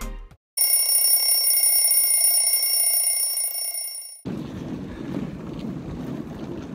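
A steady, high, bell-like ringing tone, an edited-in sound effect, that fades a little and cuts off abruptly about four seconds in. After it comes low wind noise on the microphone and street background from a handheld camera walking outdoors.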